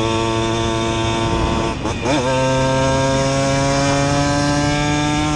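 Simson moped's 60 cc two-stroke single-cylinder engine running hard through a Jack Motors expansion exhaust. Its note breaks briefly with a quick dip and sweep in pitch about two seconds in, then carries on slightly higher and climbs slowly.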